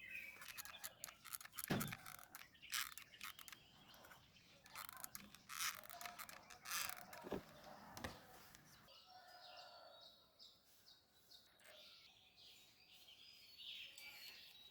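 Faint bird chirps with many small scattered clicks and taps, busiest in the first nine seconds.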